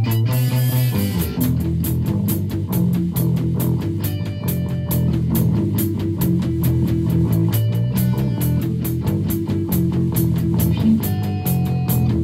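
Rock music: guitar and bass over drums keeping a fast, steady beat.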